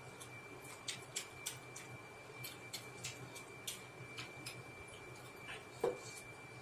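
Quiet, irregular mouth clicks and lip smacks from chewing, a few a second, over a faint steady high whine. Near the end there is one louder, duller knock as a drinking glass is lifted off the table.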